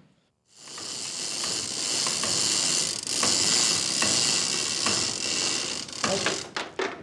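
Chain hoist ratcheting and its chain rattling steadily as a deer carcass is hauled up. The sound starts about half a second in and stops about six seconds in.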